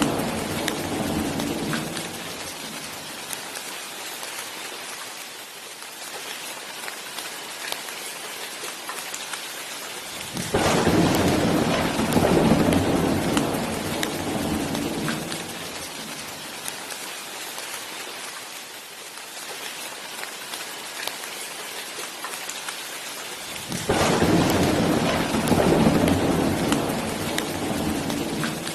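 Steady heavy rain hissing throughout, with rolls of thunder: one dies away in the first couple of seconds, and two more break in suddenly, about ten and twenty-four seconds in, each rumbling for several seconds before fading back under the rain.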